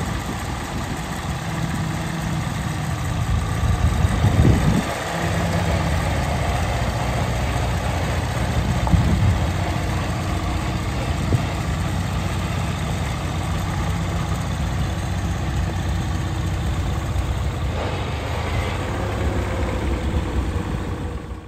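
Massey-Harris Pony tractor's small four-cylinder Continental engine running steadily at low speed as the tractor drives along, with a brief louder surge about four seconds in.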